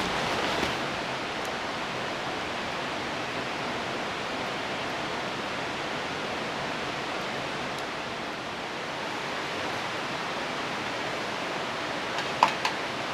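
Steady rushing noise of rain falling in a forested gorge, with a sharp click right at the start and another near the end.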